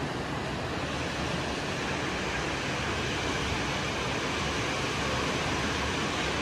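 Steady rushing noise of wind and surf, with a fluttering low rumble from wind across the microphone.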